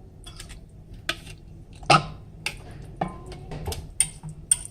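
A utensil knocking and scraping against a small cooking pot as raw boneless chicken is mixed into a yogurt and spice marinade. It makes a series of sharp knocks, and the loudest comes about two seconds in.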